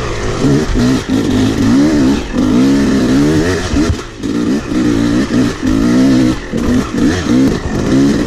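Yamaha two-stroke dirt bike engine, heard from the rider's position, revving up and falling back again and again as the throttle is worked, with a short drop off the throttle about four seconds in.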